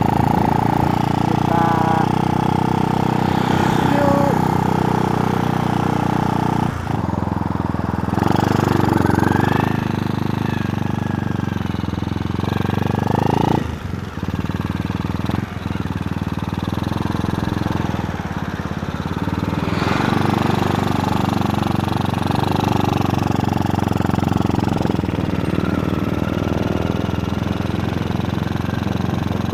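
Honda Supra single-cylinder four-stroke motorcycle engine, mounted on a BMX bicycle, running steadily as the bike rides along, heard from on board. Its note breaks off briefly about seven seconds in and again about fourteen seconds in, then runs on steadily.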